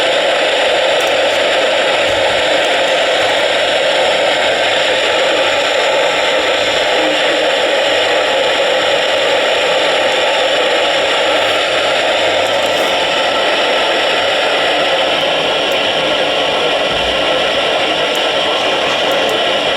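Weather radio receiver hissing with loud, steady static, with no broadcast coming through: the sign of lost or poor reception.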